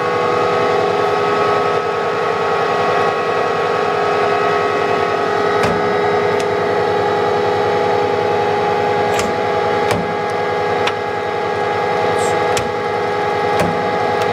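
Clausing Colchester 600 Series 13" x 40" geared-head lathe running with its spindle at 800 RPM: a steady hum and whine from the headstock gear train and 3 hp motor. A few clicks and knocks come in the second half as the carriage controls are handled.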